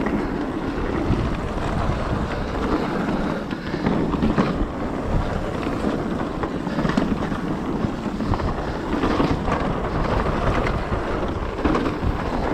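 Wind rushing over the microphone of a mountain bike rider going downhill fast, with the tyres rolling over the trail and short rattles and knocks of the bike over bumps.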